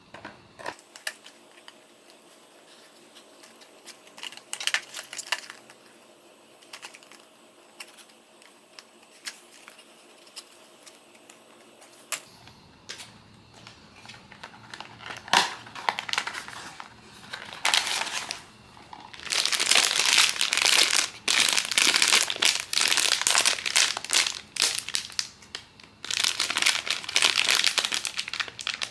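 Packaging handled by hand during a blind box unboxing: light clicks and taps at first, then loud, dense crinkling and crumpling of wrapping from about two-thirds of the way in.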